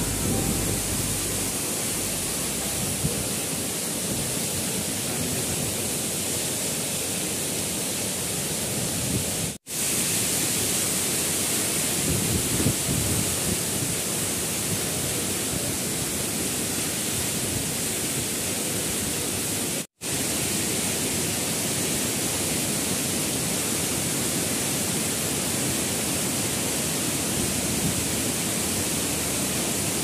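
Steady rush of a tall waterfall pouring down a rock face, an even hiss of falling water with no let-up. The sound cuts out for an instant twice, about ten and twenty seconds in.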